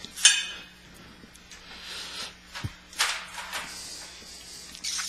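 Greased steel lift rod being worked into the snow blade's lift handle tube by hand: a few short scrapes and rustles, with a soft knock about two and a half seconds in.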